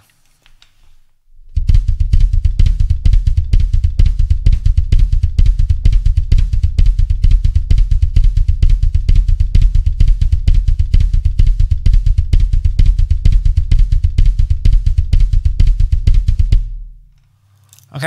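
Bass drum played with both feet in a Swiss Army triplet pattern: the left foot on straight eighth notes and the right foot on a shuffle, the two landing together as a flam on the downbeat. A fast, continuous stream of kick strokes starts about a second and a half in and stops shortly before the end.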